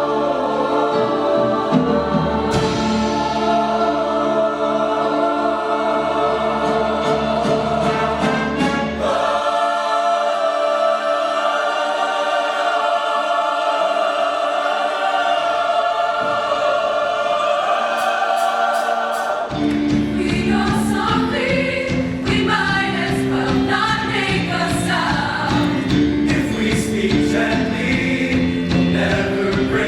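High school show choir singing with its live band. About ten seconds in, the bass and low accompaniment drop out and the voices carry on with lighter backing. The full band comes back in about twenty seconds in.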